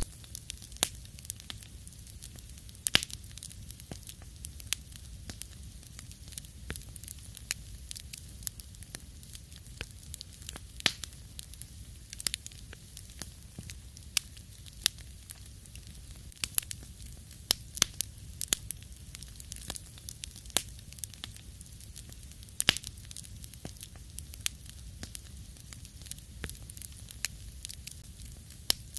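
Wood campfire crackling, with irregular sharp pops over a soft hiss.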